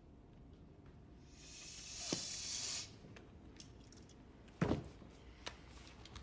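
A short hiss lasting about a second and a half, followed about two seconds later by a single dull thump.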